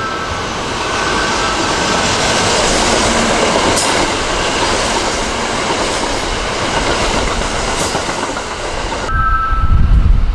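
Kintetsu electric train running past along the Osaka Line, a dense, steady rush of wheel and motor noise with a faint click or two. About nine seconds in the sound changes abruptly to a lower rumble with two steady high tones.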